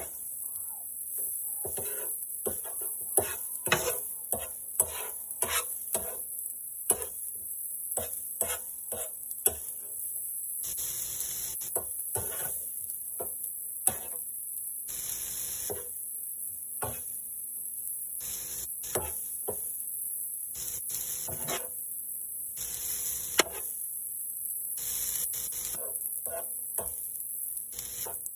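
Slotted metal spoon scraping and clinking against an electric griddle plate as broccoli is stirred and tossed, a run of quick clicks and scrapes, densest in the first ten seconds or so.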